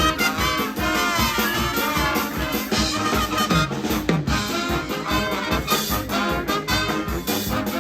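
Live brass pep band playing an upbeat tune: horns such as trumpets and trombones over a steady drum beat, with some bent notes.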